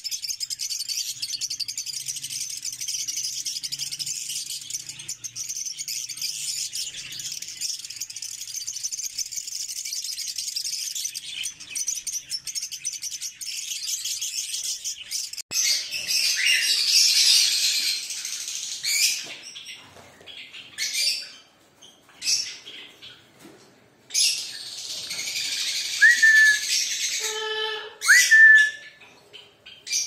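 Many caged lovebirds chattering, a dense, constant high-pitched twittering. About halfway through it gives way to Alexandrine parakeets calling in separate loud screeches with short pauses, and a few short whistled notes near the end.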